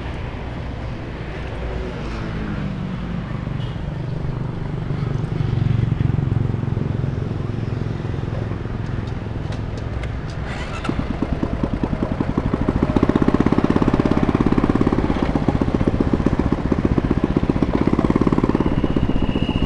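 Road traffic passing, then about halfway through a motor scooter's engine starts up. It runs with a quick, even beat that grows louder as the scooter pulls away and rides along the street.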